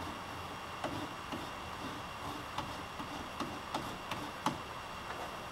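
A handful of faint, irregular clicks and scrapes as a plastic welding iron's tip is pushed and worked against aluminum screen mesh, melting it into the canoe's plastic hull, over a steady low hiss.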